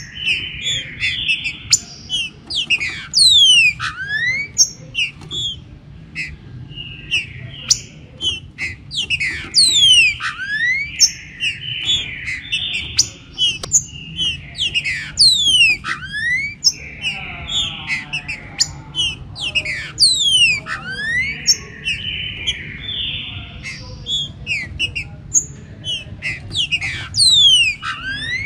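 Green-winged saltator (trinca-ferro) singing: whistled phrases repeated every second or two. They overlap with many quick rising and falling whistles from more birds, and a low steady hum lies beneath.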